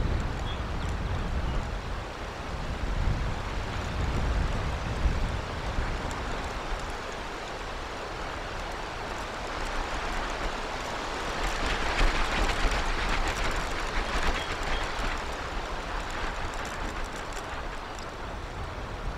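Steady rushing outdoor background noise picked up by a nest-camera microphone, with a low rumble early on and a hissing swell lasting a few seconds around the middle. No calls from the eagle.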